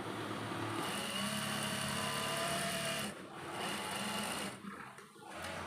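Sewing machine running in stretches of stitching, with a steady hum and a high whine, pausing briefly twice in the second half.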